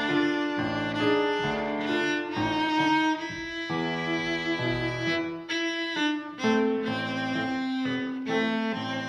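Background music on bowed strings: a slow melody of held notes, each changing after a second or so.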